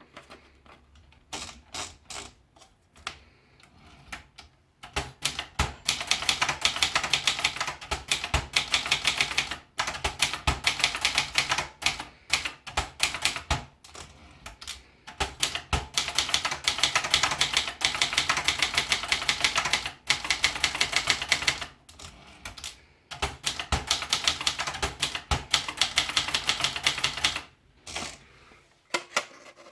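Brother Deluxe 1300 manual portable typewriter being typed on: a few single key strikes at first, then long runs of rapid keystrokes separated by short pauses, and a few more single strikes near the end.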